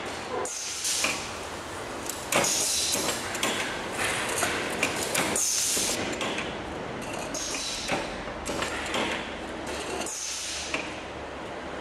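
Factory workshop noise: machinery running, with repeated short bursts of high hissing and scattered metallic clicks and knocks.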